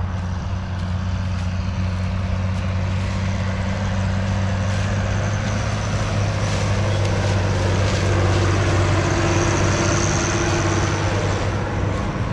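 Tractor towing a grain cart across the field, its diesel engine running with a steady low hum that grows a little louder about eight seconds in as it comes nearer.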